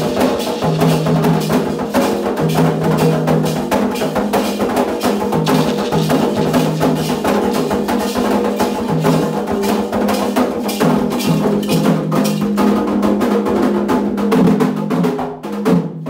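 Candomblé ritual drumming: atabaque hand drums with a struck bell or wood-like beat keep up a fast, steady rhythm, with a song in held phrases running under it.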